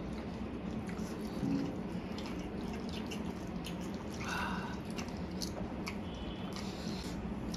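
Wet mouth sounds of two people eating spicy Korean fire noodles with chopsticks: slurping and chewing, with scattered small clicks.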